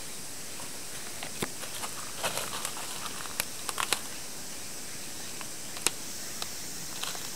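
Plastic tarp crinkling and crackling under a cat's claws as it scrambles up onto it: scattered crackles and clicks, thickest in the first half, with one sharp click later on.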